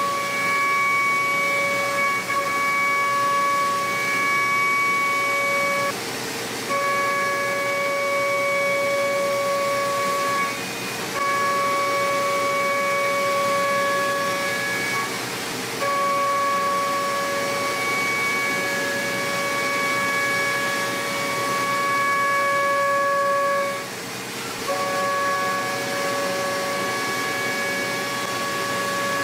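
End mill cutting aluminium on a 5-axis CNC machine at high speed: a steady, high-pitched whine with overtones over a hiss. The whine drops away briefly four times, at about 6, 11, 15 and 24 seconds.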